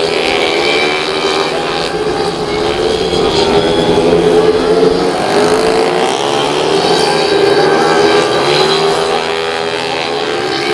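Several 115 cc automatic scooters racing past, their single-cylinder engines revving together, the pitch of each rising and falling as they accelerate and ease off through the corners.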